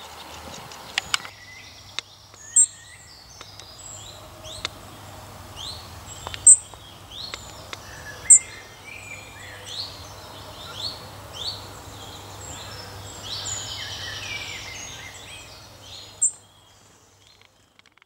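European robin singing: varied phrases of short, high sliding notes with a few louder sharp notes among them. The song stops about sixteen seconds in.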